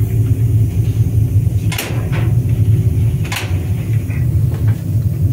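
Steady low machinery rumble inside the cab of a standing VL10 electric locomotive, with two short sharp knocks about a second and a half apart.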